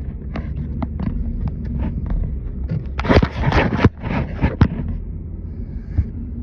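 Car driving: a steady low rumble of road and engine noise, with scattered sharp clicks and knocks and a denser scraping burst about three seconds in.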